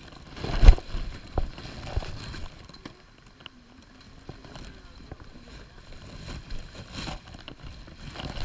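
Wind and handling noise on a walking camera's microphone, with one loud thump under a second in and a few sharp knocks of steps on wet rock. Faint voices of other hikers come and go.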